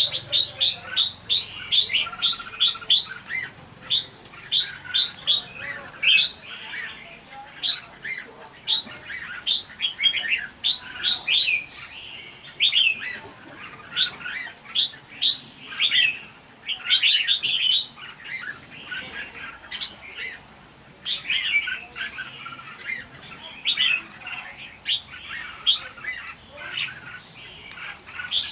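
A flock of red-whiskered bulbuls calling constantly, with sharp, short chirps and squawks several a second as they squabble over food.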